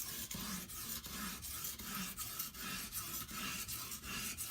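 Wet sharpening stone on an Edge Pro guided sharpener rasping along a steel butcher knife's edge in a steady run of light back-and-forth strokes, the first coarse-grit stage that raises a burr.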